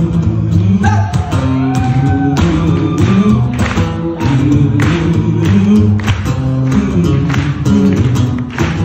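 Live acoustic music: strummed acoustic guitar chords with a man's voice singing wordless, gliding vocal lines over them into a microphone.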